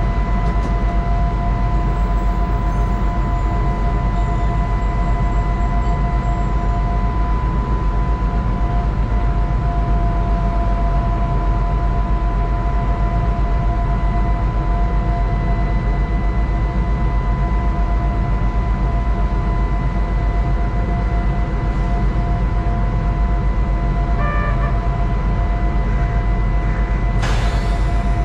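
Steady hum and whine of a stopped narrow-gauge electric train's onboard equipment, heard from inside the cab. A short hiss comes near the end.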